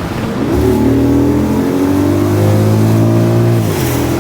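Audi S8's 5.2-litre V10 with a modified, nearly straight-through exhaust, accelerating hard: the engine note climbs steadily for about three seconds, then drops sharply near the end.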